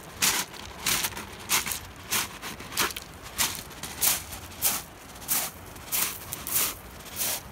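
Footsteps crunching on shingle at a steady walking pace, about one and a half steps a second.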